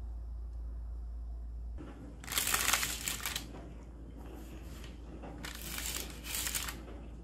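Metal spatula scraping under pastries on parchment paper, the paper crinkling in two bursts, about two seconds in and again about five and a half seconds in. Before that, a low steady hum that stops at a cut.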